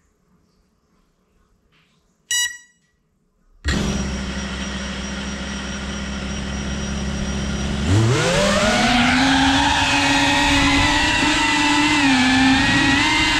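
A short electronic beep, then a cinewhoop FPV drone's brushless motors and ducted propellers start abruptly at a steady idle hum. About four seconds later the pitch rises quickly as the throttle comes up and the drone lifts off, settling into a high motor whine that wavers slightly with throttle.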